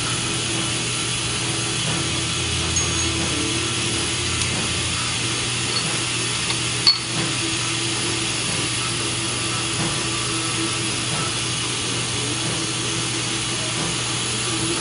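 Steady low mechanical hum of the shop background, with one sharp click about seven seconds in as the bearing-puller tool is worked by hand in the differential.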